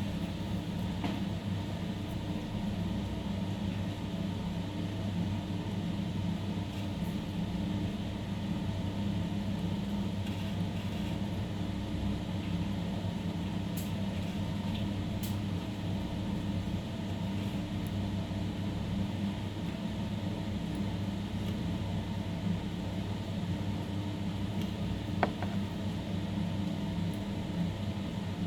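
Steady mains-powered machine hum, unchanging throughout, with a few faint ticks and one sharp click about 25 seconds in.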